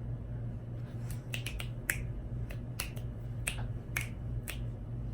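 A run of about ten short sharp snaps or clicks in an uneven rhythm, starting about a second in, over a steady low hum.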